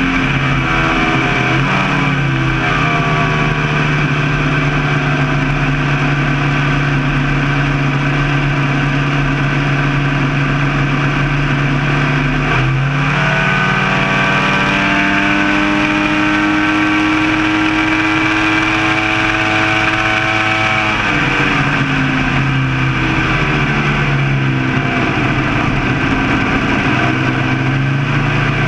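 Mercury 225 Pro Max V6 two-stroke outboard running hard on a speed boat, with water and wind rush. About halfway through the engine pitch jumps up sharply, sags slowly for several seconds, then drops back.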